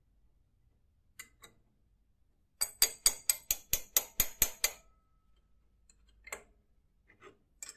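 Steel spanner working the nut that holds a small cutting disc on its bolt: a quick run of about ten sharp metallic clicks, some five a second, with a high ringing. A couple of lighter clicks come before it and a few more near the end.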